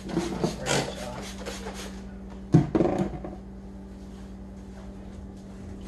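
A few quick squirts from a trigger spray bottle, then a single loud knock about two and a half seconds in, over a steady low hum.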